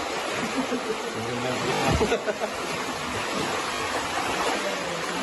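Floodwater rushing in and churning through a flooded room: a steady, dense rush of water, with a single thump about two seconds in.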